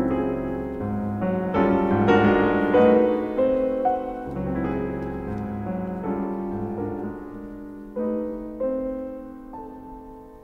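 Background piano music, slow notes ringing out and getting quieter toward the end.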